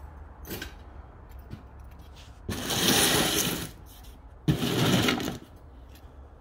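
A small power tool whirring in two bursts of about a second each, one second apart.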